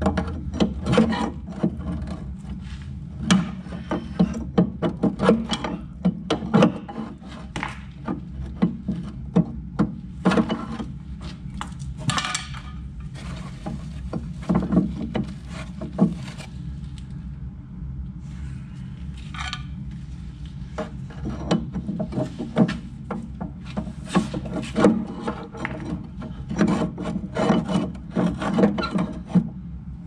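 Irregular knocks, taps and scrapes of hand-tool work on rusted steel pins and the tailgate latch linkage of a dump body, some in quick runs, over a steady low hum.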